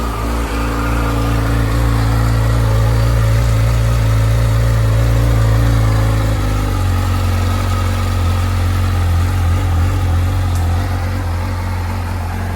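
2025 Yamaha R6 Race's inline-four engine idling just after being started on fresh oil following an oil change; the idle settles a step lower about halfway through.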